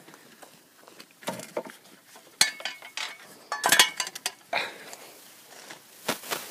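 A wheelbarrow is set down and long-handled garden tools are unloaded from it. The metal parts clank and knock sharply several times, loudest a little past the middle, over the crunch of footsteps on wood-chip mulch.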